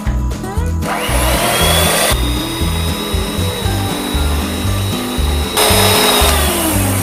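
Electric hand mixer switched on about a second in, its motor whining up to speed, and running steadily as its beaters whip a thin liquid cake batter of eggs, milk, water and oil, then winding down just after six seconds. Background music with a steady low beat plays underneath.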